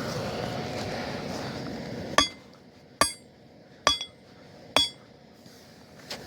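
Steady rushing of the running furnace, then four sharp ringing blows of a hammer on metal about a second apart, with a lighter tap near the end.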